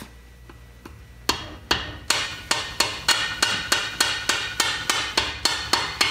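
Metal hammer blows on a C-spanner, about three a second, starting about a second in. They are knocking loose a tight, seized finned exhaust nut on a 1961 Norton Manxman 650 cylinder head.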